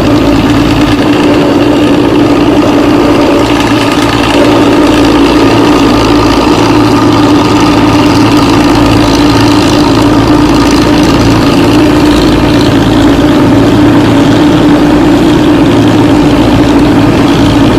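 Diesel intercity bus engine running steadily through a 'ngorok' exhaust, a loud, snoring exhaust note. It gets slightly louder about four seconds in.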